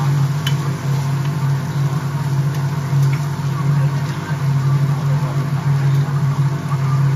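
A steady low mechanical hum, like a motor or generator running, dominates. Under it is a faint sizzling hiss of food frying on a flat griddle, with a few light clicks of a metal spatula.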